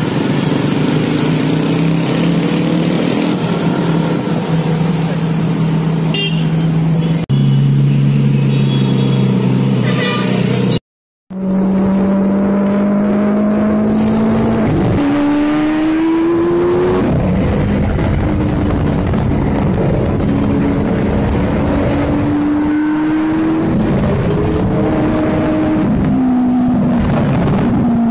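Lamborghini supercar engines running in road traffic. The first part is a steady engine drone. After a short break about 11 seconds in, the engine pitch rises and falls several times as the cars accelerate and change gear.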